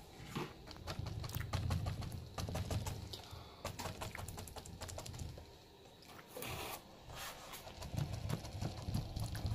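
A worn, splayed-bristle paintbrush dabbed over and over against the painting surface to stipple on paint: quick irregular taps over dull low thuds, easing off briefly past the middle.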